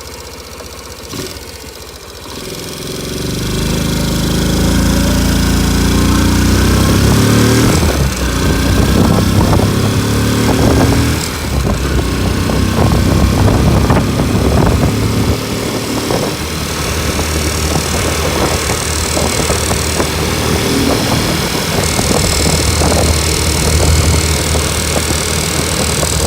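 Honda Super Cub single-cylinder engine, bored up to 105cc, running under way: it revs up through the gears over the first several seconds, then settles into a steady cruise. At steady speed the owner reports an unexplained clicking noise from the bike, one that does not occur at idle or under acceleration.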